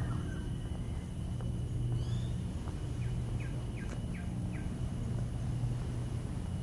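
Birds calling in short chirps, with a quick run of about five short notes in the middle, over a steady low rumble of outdoor ambience.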